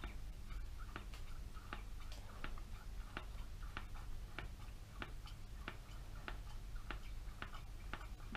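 A steady run of light mechanical clicks, about two to three a second, over a faint low hum.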